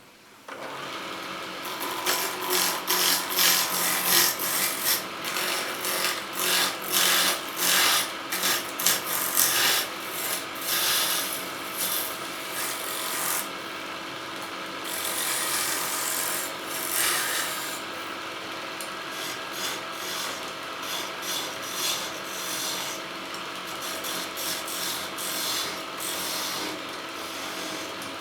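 Wood lathe running while a turning tool cuts into the spinning wooden workpiece in repeated scraping passes over a steady motor hum. The cuts are heavier in the first half and lighter and more even later on.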